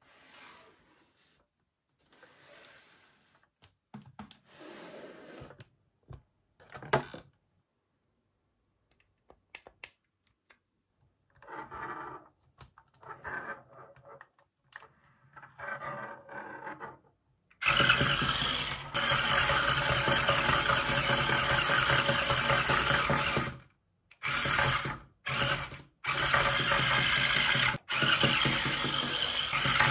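Faint handling noises, then a small motor starts up loudly and runs steadily, stopping briefly a few times and starting again.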